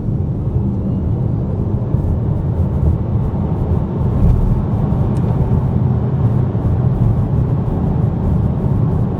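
Renault Scenic E-Tech electric car driving, heard from inside the cabin: a steady low rumble of tyre and road noise, with a faint rising electric-motor whine in the first couple of seconds.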